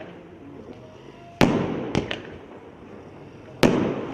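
Fireworks cake of coloured comets firing: two loud shots about two seconds apart, each followed by a fading hiss, with a couple of lighter cracks between them.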